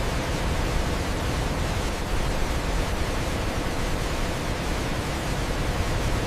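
Waterfall: water pouring and crashing in a steady, unbroken rush, heaviest in the low end.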